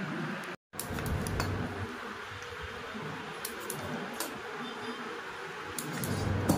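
Hand vacuum pump of a cupping set being worked on a plastic cup on bare skin: a few sharp clicks over a steady buzzing background.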